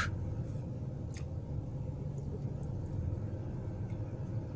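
Steady low background rumble with no speech, and one faint click about a second in.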